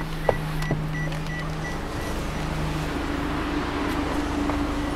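A steady low mechanical hum, with a faint beep repeating about three times a second over the first two seconds and a couple of faint clicks near the start.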